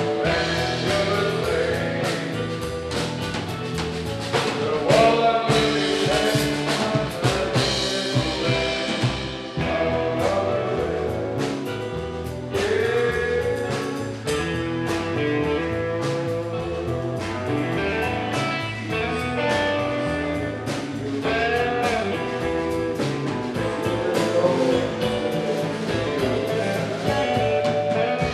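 Live rock band playing: a male singer's vocals over electric guitar and a drum kit.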